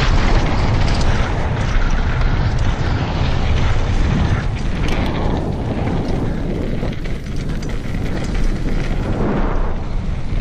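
Mountain bike descending a dirt trail at speed: a steady rumble of wind on the microphone and tyres on loose dirt, with constant rattling and clicking from the chain and bike over the bumps.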